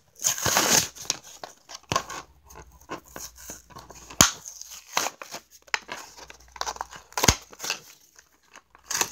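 Cardboard and clear plastic toy-car packaging being pried open by hand: irregular crinkling, scraping and tearing, with a loud tear about half a second in and a few sharp plastic clicks later on.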